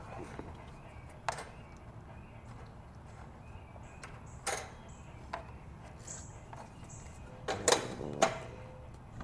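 A few sharp clicks and knocks of tools and parts being handled during carburetor removal on a small generator engine, the loudest pair near the end, over a low steady background hum.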